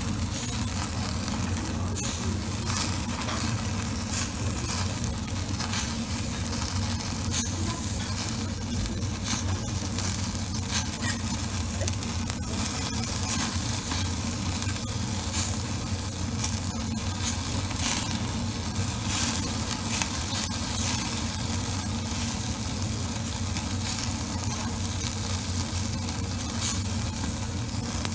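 Bone-in beef short ribs (kalbi) sizzling on a wire grill over charcoal, with frequent small crackles and pops over a steady low hum.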